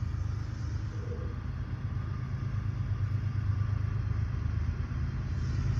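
GE diesel freight locomotives' engines running with a steady low rumble that grows slowly louder.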